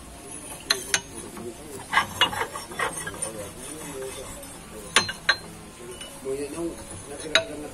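Loose steel swing hammers on the stopped rotor of a sand-crushing hammer mill, clinking and clanking against each other and the shafts as they are moved by hand. The clinks are scattered, a few about one to three seconds in, two sharp ones about five seconds in, and the loudest near the end.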